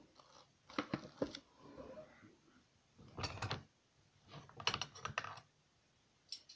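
Dishes clinking and clattering in a kitchen sink, in four short bursts of sharp clicks.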